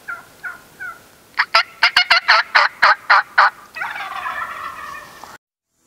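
Wild turkey calling: a few soft yelps, then from about a second and a half in a loud, rapid run of about ten notes, then a harsher rolling call that cuts off suddenly shortly before the end.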